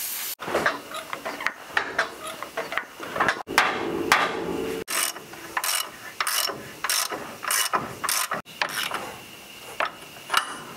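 A short hiss from an aerosol spray can at the start, then a hand ratchet clicking in repeated short strokes as it works the ball joint nut on the front spindle.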